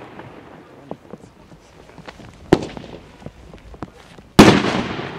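Consumer (class F2) aerial fireworks. The echo of a burst dies away, a sharp report comes about two and a half seconds in, and a loud bang follows just over four seconds in, its echo rolling away.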